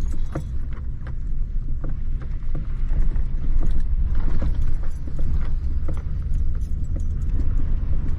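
Car driving on a wet, puddled road: a steady low rumble with frequent small rattles and knocks.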